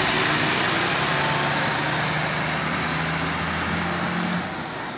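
Fish-laden box truck pulling away and driving past, its engine running with a steady hum and road noise. The engine note rises a little partway through, then the sound fades near the end as the truck moves off.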